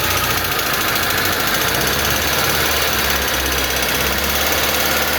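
Car engine running with a loud, rapid, steady ticking clatter from the valve train: a rocker arm stuck and not lubricating, rubbing on its lifter.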